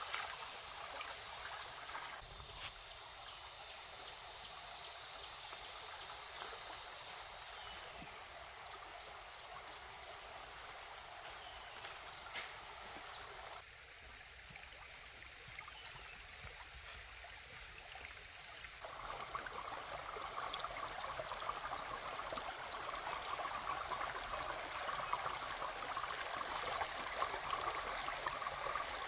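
Stream water running steadily, with insects trilling continuously in the background. The water gets louder and busier about two-thirds of the way through.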